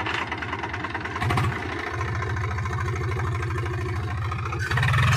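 Swaraj 735 tractor's three-cylinder diesel engine running with a steady low chugging beat while the tractor is reared up on its rear wheels. It grows louder near the end.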